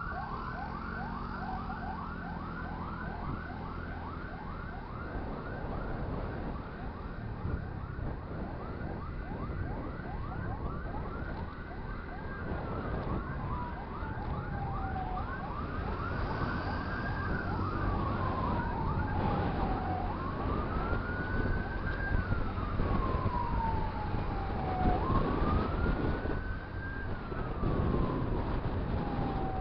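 Two electronic emergency-vehicle sirens sounding at once: one a fast yelp of quick rising sweeps, about three a second, that fades out about two-thirds of the way through; the other a slow wail that rises and falls about every five seconds, starting about a third of the way in. Vehicle and road noise runs underneath.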